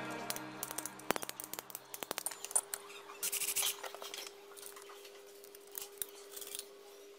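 Light clicks and taps of curved PVC pipe pieces being handled and set down on a workbench, with a short scraping rustle about three seconds in.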